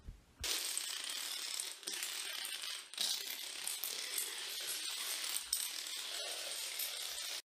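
A long chain of dominoes toppling, a rapid, continuous clatter of small clicks that stops abruptly near the end.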